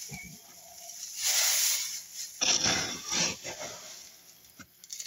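Clumping cat litter being raked and scooped by hand in a litter box: dry granules hissing and scraping. There are two bursts, one about a second in and a longer one starting around two and a half seconds in.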